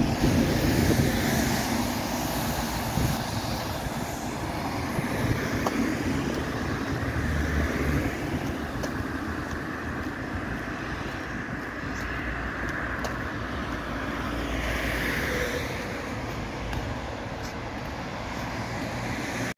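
Road traffic on a street beside the pavement: a steady rush of tyres and engines that swells a few times as cars pass.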